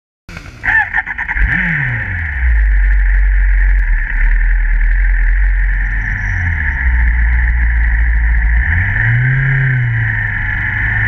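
Motorcycle engine running while riding, recorded from an onboard camera, under a steady hiss; the engine's pitch drops about a second and a half in and rises and falls again near the end.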